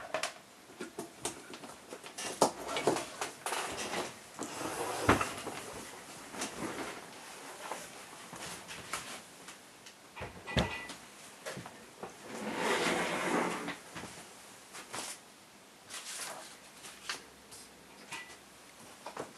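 Irregular knocks, clunks and clicks of equipment being lifted off and set down on a workbench by hand, with a longer scraping rustle about two-thirds of the way through.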